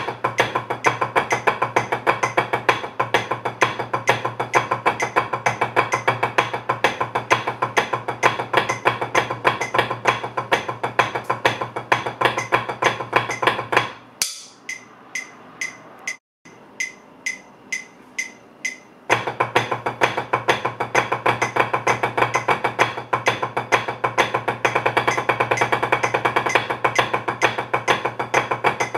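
Drumsticks playing rapid rudiment patterns on a rubber drum practice pad, a dense stream of strokes. About fourteen seconds in, the playing thins to single strokes about two a second for a few seconds, then the fast stream resumes.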